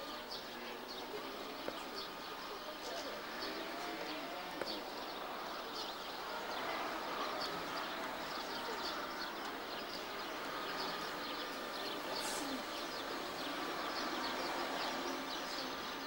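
Birds chirping and calling outdoors, many short chirps throughout over a steady background hiss.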